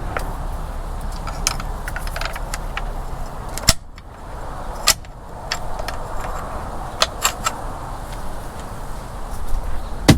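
Clinks, clicks and knocks of hands working hardware loose from a boat. There are sharp clacks a little under four seconds in, again about a second later, and once more right at the end.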